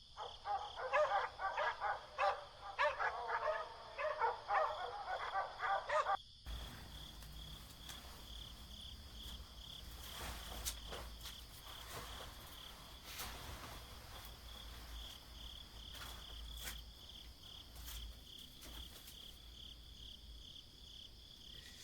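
Crickets chirring steadily. For the first six seconds a rapid run of animal calls sounds over them and then stops abruptly, after which a faint low hum comes in.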